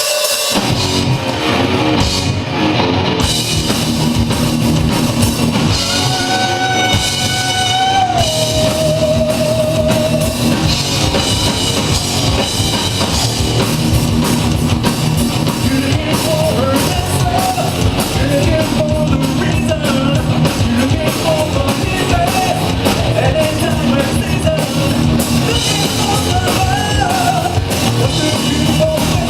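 Rock song played by a band: drum kit and guitar under a sung melody, with a long held, wavering note about eight seconds in.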